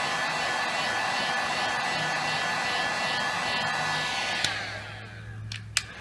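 Handheld heat gun blowing steadily with a whining fan, used to heat the phone so a part can be taken off. About four and a half seconds in it clicks off and its fan winds down, and two sharp clicks follow near the end.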